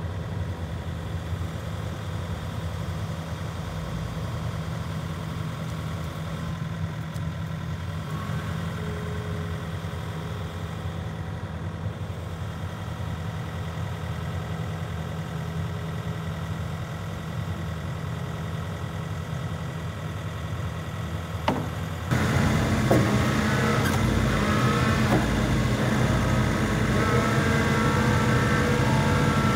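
Kobelco SK85 MSR excavator's diesel engine idling steadily. About three-quarters of the way in, after a sharp click, the sound turns suddenly louder with a wavering whine as the engine picks up and the hydraulics lift the boom.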